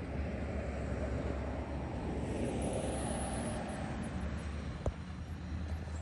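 A distant diesel locomotive rumbling low and steady while a road vehicle passes, its noise swelling to a peak about halfway through and fading. A single sharp knock comes near the end.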